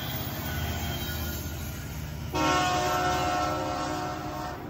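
Freight locomotive CN 8891 running past with a steady low rumble from its diesel and the rolling cars. About halfway through, its multi-note air horn sounds a blast of a little over two seconds, which cuts off near the end.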